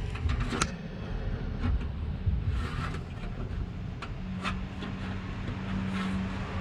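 Low steady rumble of a running vehicle engine, with a steady hum joining about four seconds in. A few light clicks of plastic air-shock tubing being handled.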